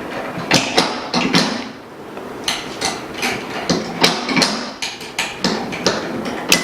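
Irregular clicks and knocks of metal laminator mold parts being handled and fitted as the mold is changed.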